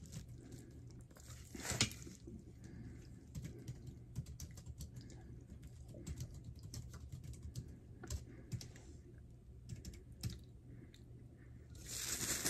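A dry ball of edible clay being chewed close to the microphone: faint, crisp crackles and clicks in quick, irregular succession. A louder rustle starts just before the end.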